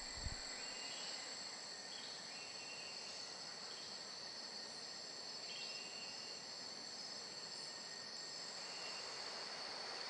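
Tropical rainforest insects buzzing steadily at two high pitches, with short chirps from other insects now and then. A soft low thump comes just after the start.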